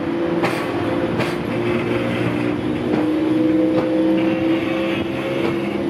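JR Freight HD300 hybrid shunting locomotive moving slowly past, its running drone made of several steady held tones. A few sharp clicks about half a second and a second in.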